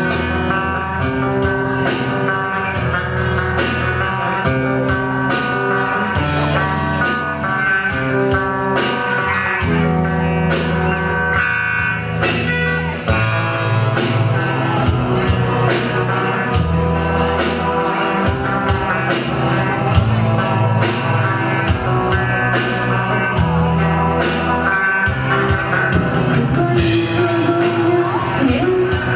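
Live rock band playing: electric guitar, bass and drum kit keeping a steady beat, with a guitar melody line over it.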